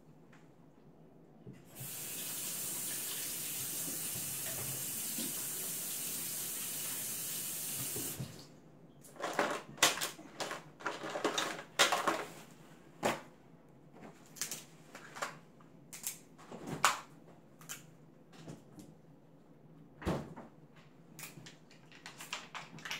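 A water tap runs steadily for about six seconds and stops. Then a string of sharp cracks and clicks follows as crab leg shells are snapped by hand over aluminium foil trays.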